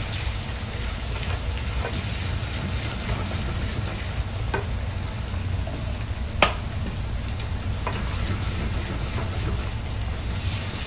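Food sizzling in a non-stick frying pan while a wooden spoon stirs it, knocking against the pan a few times; the loudest knock comes a little past the middle. A steady low rumble runs underneath.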